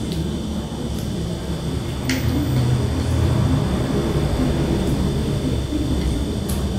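A person eating with chopsticks: sharp clicks of the chopsticks against the bowl about two seconds in and again near the end, with chewing, over a steady low rumble.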